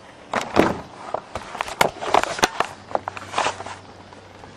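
Irregular rustles and clicks of scrapyard receipts being handled and shuffled, lasting about three and a half seconds.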